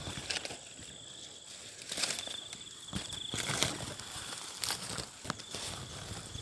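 An insect calls with a high, pulsing trill that comes and goes in bursts of about a second, over a fainter steady high tone. Leaves and stems rustle and crackle as someone pushes through dense undergrowth; the sharpest crackles are the loudest sounds, about 2 and 3.5 seconds in.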